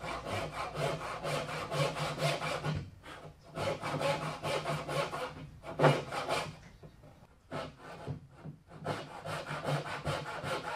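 Hand saw cutting a tenon in walnut: runs of quick, even back-and-forth strokes, broken by two short pauses, with one sharp knock a little past halfway.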